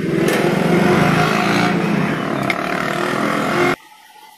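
A motor engine running steadily, stopping suddenly a little before the end.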